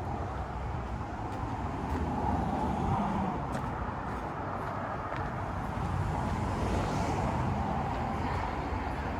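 A steady low mechanical rumble with an even hiss over it, like a running engine.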